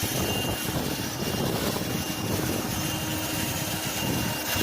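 Black & Decker AV1205 12-volt handheld car vacuum cleaner running steadily while vacuuming: an even rush of air with a thin high whine from the motor.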